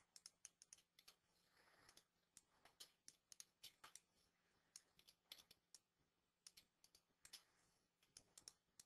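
Faint computer mouse clicks, scattered and sometimes in quick runs, over near silence.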